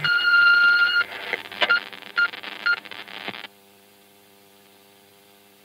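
Electronic beeper giving one long steady beep of about a second, then three short beeps at the same pitch with crackling clicks between them. About three and a half seconds in it gives way to a faint steady electrical hum.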